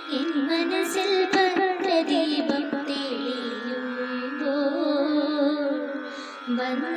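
A girl singing a Carnatic devotional song in raga Anandabhairavi, her notes bending and wavering in gamaka ornaments, over a steady drone accompaniment.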